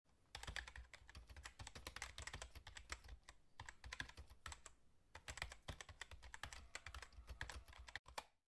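Computer keyboard typing: a quick, faint run of key clicks, with a short pause about halfway through.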